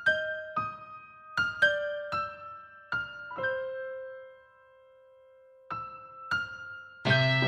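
A sparse, high piano melody of single notes, each ringing and fading. One held note dies away to a brief near-silence, two more notes follow, and near the end the full band with bass comes in.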